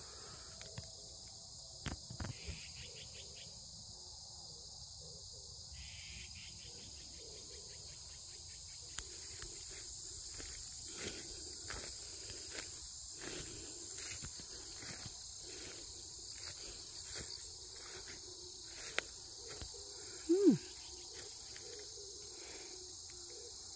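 Steady high-pitched chorus of crickets and other insects in grass, with scattered small clicks throughout. About twenty seconds in comes a short, loud pitched sound that slides in pitch.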